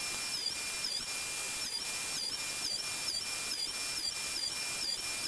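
Table saw running, its spinning blade and motor giving a steady high-pitched whine over hiss that dips slightly about twice a second, while thin wood strips are cut.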